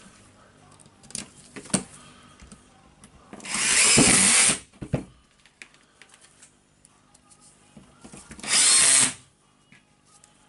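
A power tool motor runs in two short bursts of about a second each, some five seconds apart, with a few light clicks before the first.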